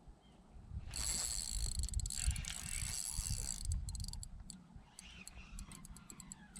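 Fishing reel working: a high whirring spool for two or three seconds, then a run of quick light clicks.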